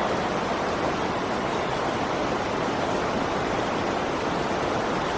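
A steady, even rushing noise that holds the same level throughout, with no tones, beats or breaks.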